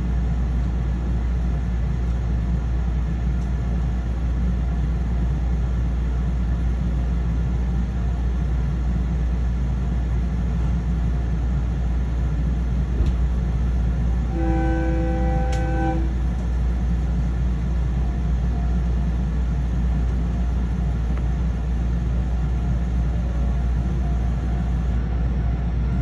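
Steady low rumble of a train, with a train horn sounding once for about a second and a half about halfway through.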